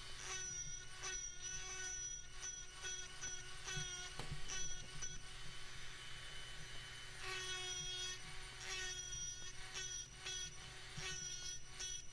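Dremel rotary tool on a flex shaft running with a steady whine while a small grinding bit works into walnut. The whine swells and fades in short repeated strokes as the bit is pressed on and lifted, with a steadier stretch about halfway through.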